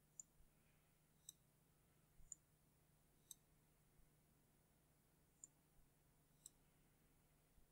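Faint computer mouse button clicks, about seven of them at irregular intervals, over a near-silent background.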